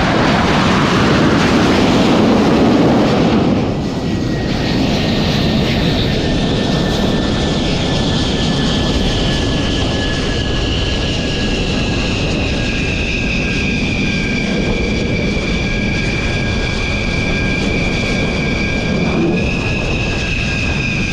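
Twin jet engines of a Dassault Rafale running on a carrier flight deck: a loud steady rush with a high whine that slides slowly down in pitch and then holds steady. The sound is a little louder for the first few seconds.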